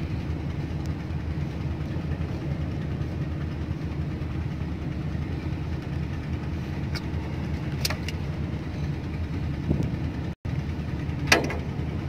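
Komatsu 705A motor grader's diesel engine idling steadily, heard close in the engine bay by the air-conditioning compressor, with a few light clicks.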